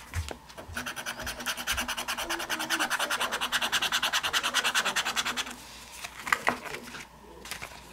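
Scratching the coating off a scratch-off lottery ticket. A fast, even run of back-and-forth scratches, about eight a second, stops about five and a half seconds in, followed by a few lighter scrapes.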